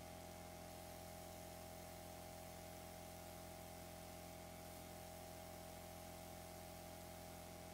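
Near silence: a steady hiss with a faint electrical hum and no distinct events.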